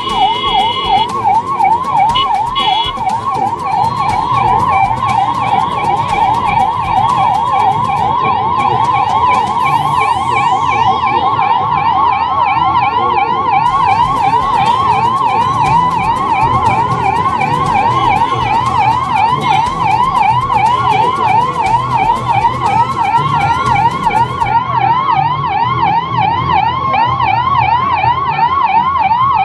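Ambulance sirens sounding a fast yelp, the pitch sweeping up and down a few times a second without a break, over the low running of vehicle engines.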